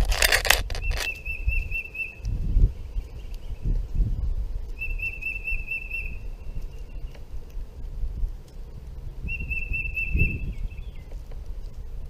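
A songbird sings three fast whistled trills of rapidly repeated notes, spaced a few seconds apart. At the start there is a short, loud flutter of wingbeats close to the microphone, and a low rumble of wind on the microphone runs underneath.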